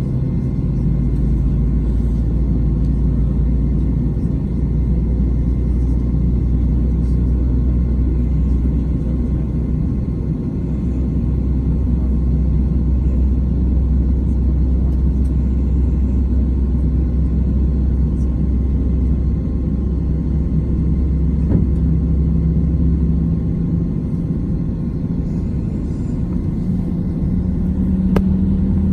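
Airbus A319 cabin noise: a steady low rumble of the jet's engines and airframe heard from inside the cabin, with a low engine hum that rises in pitch in steps during the last third.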